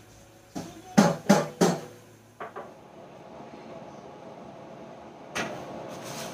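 A quick run of four loud knocks, then two lighter taps a second or so later: household clatter. A steady hum starts near the end.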